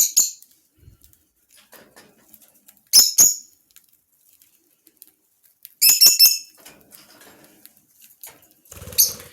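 Pet parrot giving short, shrill calls, four times about three seconds apart, each call two or three quick high notes.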